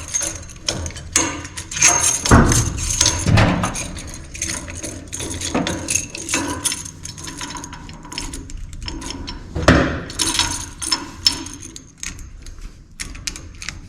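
Metal hose clamps clinking, rattling and tapping as they are handled and wrapped around a roll-cage bar. Irregular sharp clicks with a thin metallic ring, heaviest about two to three seconds in and again around ten seconds.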